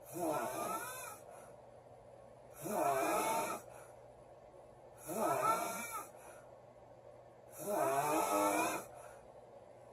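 A woman snoring loudly: four snores about two and a half seconds apart, each lasting about a second, with a pitch that wavers through each snore.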